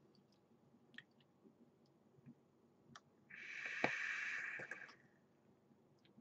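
A drag on a vape with a single-coil atomiser: about a second and a half of airy hiss as air is pulled through the firing coil, with a few light clicks before it.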